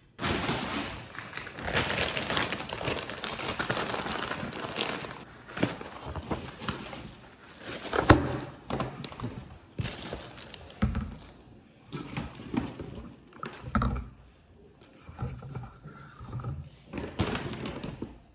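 Plastic shopping bags and plastic-wrapped groceries crinkling and rustling as groceries are unpacked, with several knocks of items being set down on the counter.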